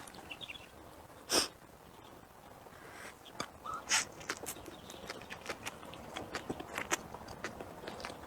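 A person eating close to the microphone: soft chewing with many small mouth clicks, and one short breathy sound about a second in.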